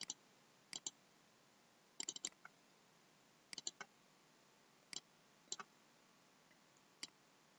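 Computer mouse button clicking, mostly in quick press-and-release pairs, about seven times at irregular gaps of roughly a second. There is a quicker cluster of several clicks about two seconds in. Between the clicks it is near silence.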